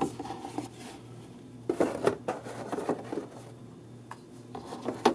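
Stiff leather knife sheaths being handled and set down on a cutting mat: soft rubbing and a few light taps and clicks, a cluster about two seconds in and another near the end.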